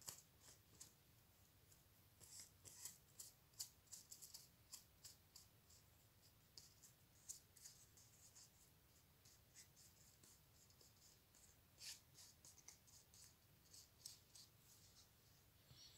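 Faint, irregular crackling and rustling of a small paper cut-out being handled and rubbed between the fingers, in clusters of quick ticks that thin out in the middle.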